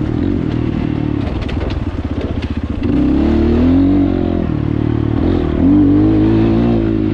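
Double overhead cam 300 dirt bike engine being ridden, its pitch rising and falling with the throttle. It opens up louder about three seconds in and again near six seconds.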